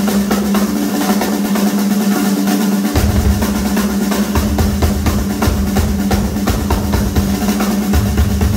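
Fast drum roll on a chrome Ludwig drum kit during a drum solo. The bass drums join in about three seconds in and keep going under the roll.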